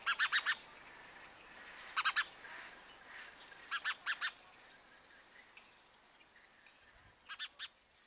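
Sparrow chirping in quick bursts of three or four short notes, four bursts spaced a couple of seconds apart.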